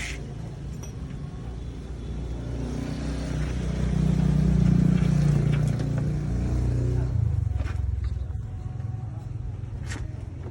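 A motor vehicle's engine running, swelling louder over a few seconds and then fading, after a single sharp click.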